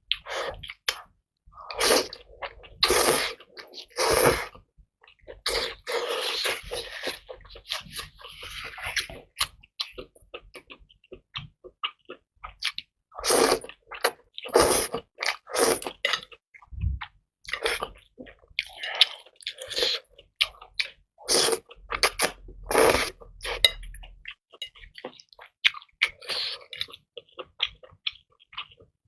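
Close-miked eating: a person chewing and biting into spicy fire chicken noodles and large prawns, with irregular sharp bites and wet mouth sounds.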